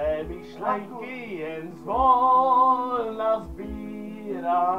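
A man singing along to a karaoke backing track, holding a long note about two seconds in and another near the end.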